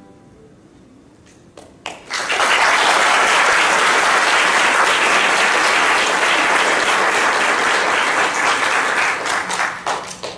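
Audience applauding, starting about two seconds in after a short lull and tapering off near the end.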